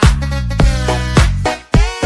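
Electronic dance music with a heavy bass line and a steady beat of about two hits a second.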